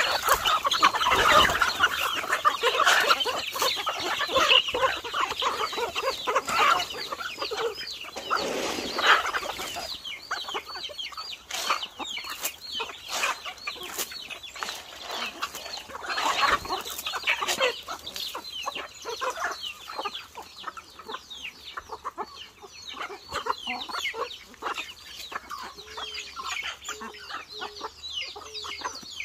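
Chickens clucking and calling, many short calls overlapping, busiest and loudest in the first ten seconds and thinning out after.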